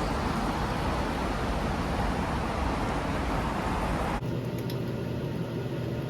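Steady rush of city street traffic noise, cut off abruptly about four seconds in. A quieter steady low hum with a few faint clicks follows.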